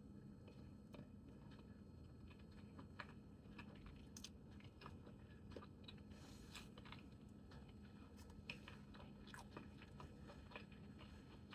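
Faint close-up chewing of yellow yam and corned beef: soft, wet mouth sounds with scattered small clicks, over a low steady hum.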